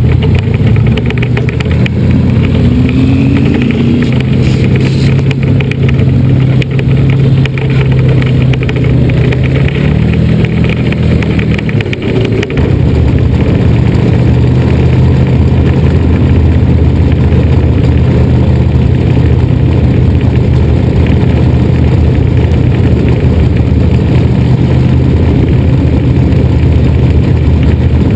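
A 305 sprint car's small-block V8 running steadily, heard close up from the car itself. Its pitch rises a little around ten seconds in and drops back about twelve seconds in.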